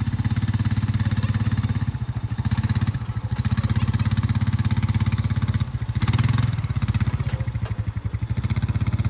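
Four-wheeler (ATV) engine running at low speed as it drives slowly, with an even pulsing beat; it dips twice and rises briefly about six seconds in.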